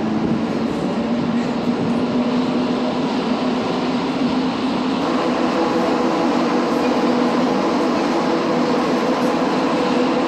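Montreal Metro Azur train car running between stations on rubber tyres, heard from inside the car: a steady loud rumble with a few humming tones held over it.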